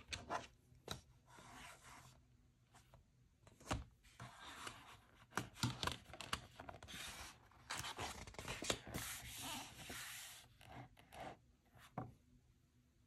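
Toy packaging being handled and opened by hand: rustling and tearing, with scattered clicks and taps, and longer stretches of scratching and rubbing in the middle.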